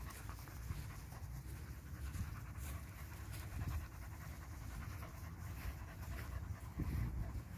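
Two small black terriers panting with quick, rapid breaths over a low steady rumble.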